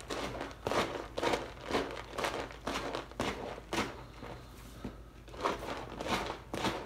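Hands crinkling and rustling something crinkly, such as packaging, in short scratchy bursts about two a second, with a quieter stretch a little past the middle.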